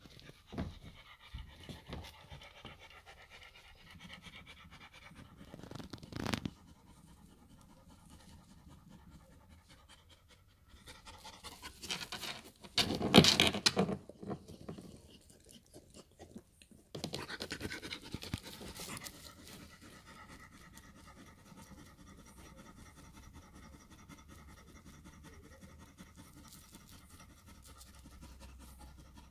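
A dog in labour shifting and scratching at puppy pads and towels in a plastic whelping box, with rustling bursts, the loudest about halfway through, and panting.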